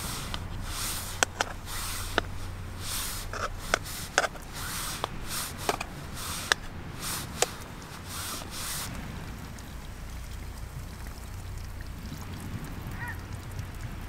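Rustling with a string of sharp clicks and taps for the first nine seconds or so, then quieter, leaving a low steady hum.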